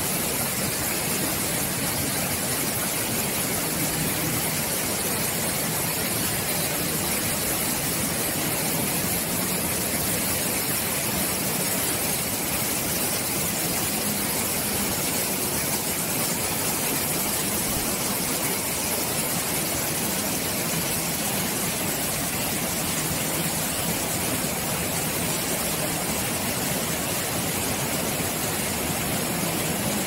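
Stream water rushing, a steady even hiss that does not change.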